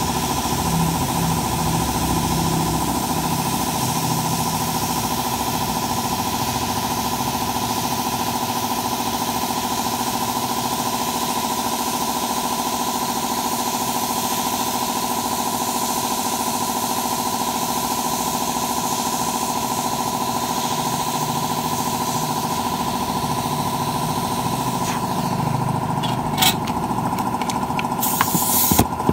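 A small electric motor running with a steady hum and whine. A few sharp clicks come near the end.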